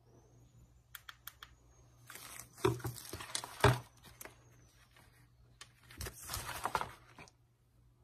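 A few light clicks, then plastic packaging crinkling and rustling in two bouts as the USB cable is handled and unwrapped.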